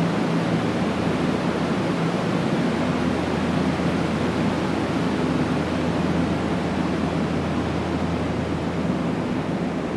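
Steady rushing air with a low hum from the ventilation blowers feeding the fabric ducts overhead.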